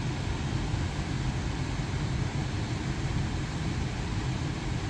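Steady low hum and air noise from the electric car's cabin climate system, with no change anywhere in it: the AC compressor does not kick on, which the owner takes as no sign of the compressor running.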